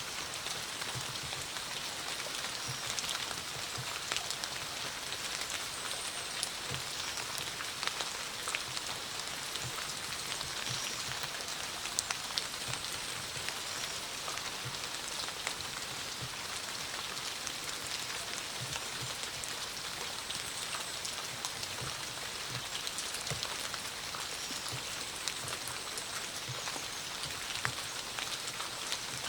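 Steady autumn rainfall: an even hiss of rain with many separate drops ticking sharply throughout.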